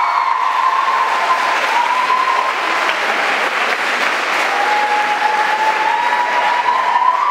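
An audience applauding steadily, with high voices cheering over the clapping at times.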